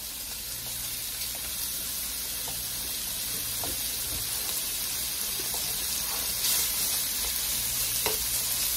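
Raw bacon pieces sizzling in a hot frying pan, the sizzle growing steadily louder as the fat starts to render. Near the end a utensil stirs the pieces, adding a few light clicks and scrapes against the pan.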